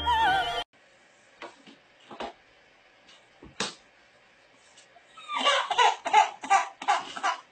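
Opera singing cuts off within the first second. After a few faint clicks, a baby in a crib, heard through a baby monitor camera, breaks into a rapid string of short squeals and grunts about five seconds in.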